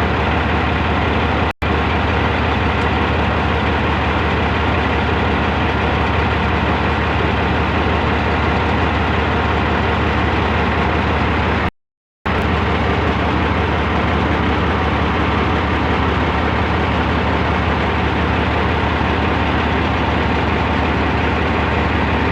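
Heavy diesel engine of construction machinery (bulldozer or excavator) running steadily with a low drone. The sound drops out for an instant about a second and a half in and for about half a second midway.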